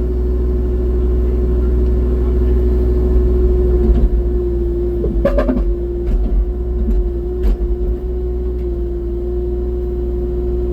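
Small rubber-tracked excavator's engine running steadily under load, a low rumble with a steady whine, and a few brief knocks about halfway through.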